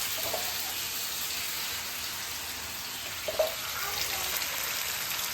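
A chili paste sizzling steadily as it fries in hot oil, with one brief knock about three and a half seconds in.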